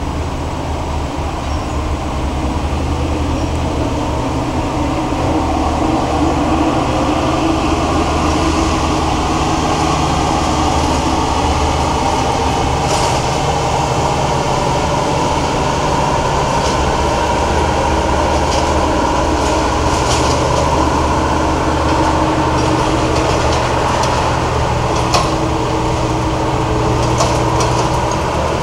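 Claas Lexion combine harvester driving slowly across a concrete bridge, its diesel engine running steadily and getting louder as it comes closer. From about halfway through come scattered sharp metallic clanks and rattles as it crosses.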